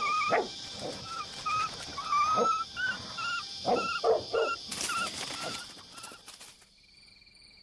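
Dog barking several times over a steady high insect drone, with short high chirps repeating about twice a second.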